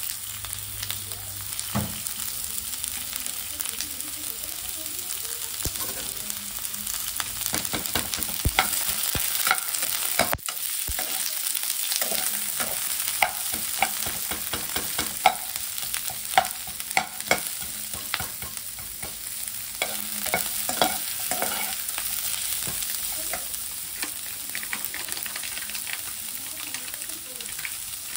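Chopped onions sizzling in hot oil in a nonstick frying pan. A perforated metal spatula scrapes and taps against the pan as they are stirred, most often through the middle of the stretch.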